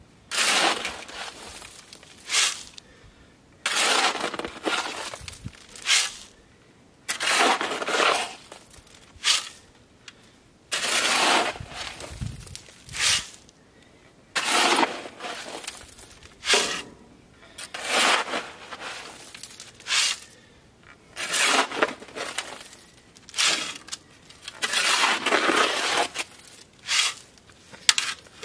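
Steel shovel scraping into crushed stone gravel and throwing it down, a crunching scoop-and-toss repeated every one to two seconds.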